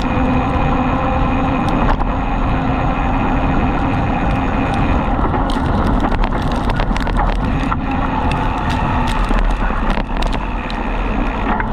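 Wind rush and tyre noise from a bicycle travelling fast on a dirt road as two dogs tow it. A steady hum runs under the rush, and sharp rattles and clicks from the bike grow more frequent about halfway through.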